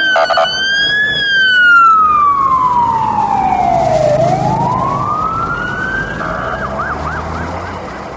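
Ambulance siren wailing in slow rising and falling sweeps, switching briefly to a fast warble near the end, and gradually fading.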